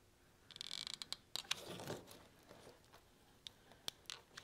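Faint clicks and small knocks, with a short rustle about half a second in, from a hot glue gun and small wooden window-frame pieces being handled while gluing.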